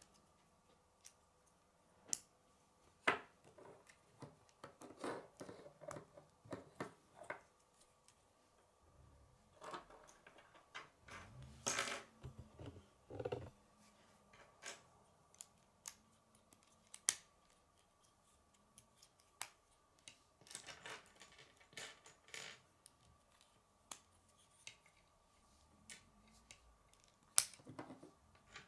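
Plastic K'nex rods and connectors clicking and knocking as they are snapped together and handled, in irregular clusters of sharp clicks.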